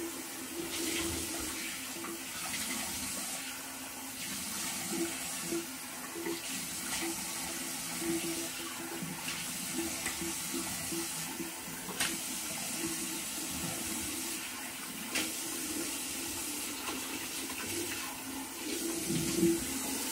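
Cold water running steadily from a bathroom tap into the sink, with occasional splashes as it is used to rinse the face after a shave.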